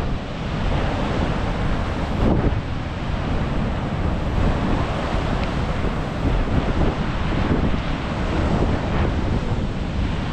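Ocean surf washing against the coast, with wind buffeting the microphone in a steady low rumble.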